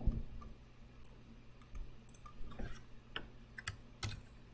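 Irregular, scattered clicks and taps of a computer keyboard and mouse, about a dozen in all.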